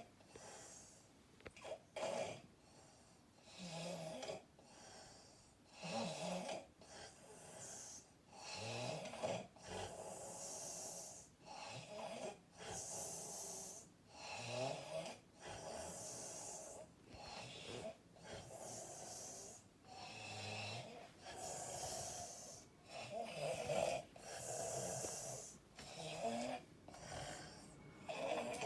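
A sleeping person snoring loudly through an open mouth: a rasping snore alternating with a hissing breath, repeating every second or two. The heavy snoring comes with her being sick.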